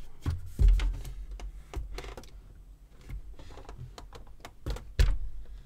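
Irregular small clicks and taps of hand-work inside a cassette deck's metal chassis as a screw and tool are handled in a tight spot, with two heavier knocks, about half a second in and near the end.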